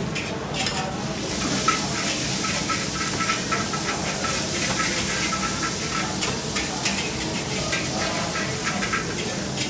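Food frying in hot oil with a loud, steady sizzling hiss that swells up about a second in, with scattered clinks of metal cooking utensils.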